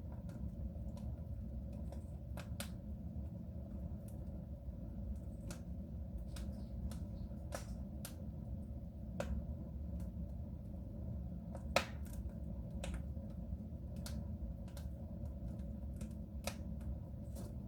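Wood fire burning in a soapstone stove: irregular crackles and pops over a steady low rumble, with one sharper pop about two-thirds of the way through.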